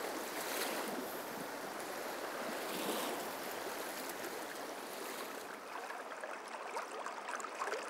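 Fast, shallow river current running over stones and around a wader's legs: a steady rushing of water.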